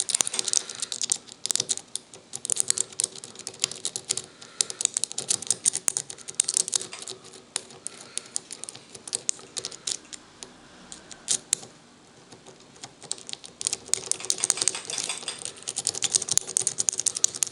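Lock pick raking the pin tumblers of a padlock: rapid, irregular metallic clicking and scraping in the keyway. It pauses briefly past the middle, then starts again.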